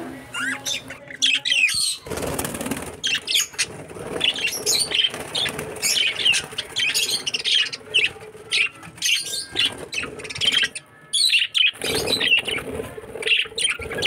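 A flock of budgerigars chattering with many short, high chirps and warbles, with a brief rush of noise about two seconds in.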